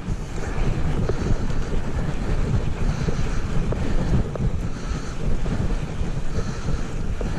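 Wind buffeting an action camera's microphone as a mountain bike rolls down a slope of loose sand and gravel, with scattered light crunches from the tyres on the grit.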